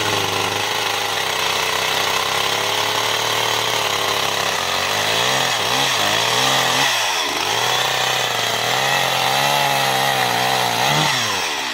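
Stihl chainsaw at full throttle bucking a downed tree. The engine pitch sags and recovers several times as the chain bogs down in the wood, then drops away near the end as the saw comes off throttle.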